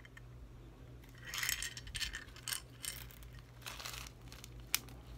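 Small glass beads clicking against a clear plastic box, with small clear plastic bead bags crinkling as they are handled. There is a crinkly stretch about a second in, then scattered light clicks, the sharpest just before the end.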